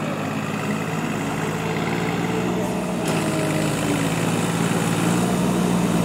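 Diesel engine of farm machinery running steadily at constant speed, a low even hum with no revving.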